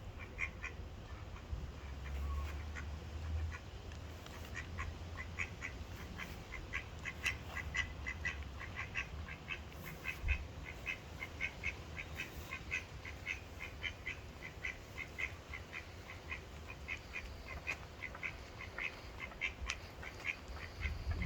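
Mallard ducks quacking in a steady run of short calls, several a second, over a low rumble.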